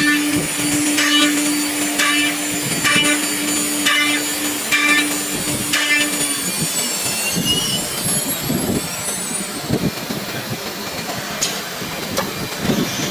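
EK1 1328 ATC CNC nesting router machining wood panels. For the first half there is a steady hum with a regular knock about once a second. Around the middle a high spindle whine slides down and up in pitch, and a couple of sharp clicks come near the end.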